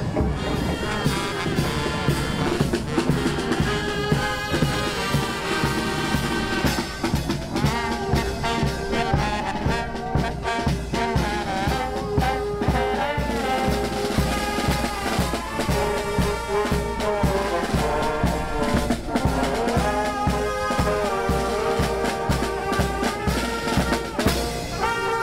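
Marching brass band playing outdoors: trombones and other brass carry the tune over a steady beat on a bass drum with a mounted cymbal.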